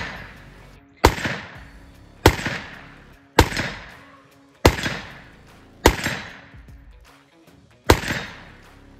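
Six semi-automatic shots from a 450 Bushmaster AR-15 rifle, about one every 1.2 seconds, each a sharp report with a fading echo. They are the end of a full seven-round magazine that the new lower cycles without a malfunction. Background music plays underneath.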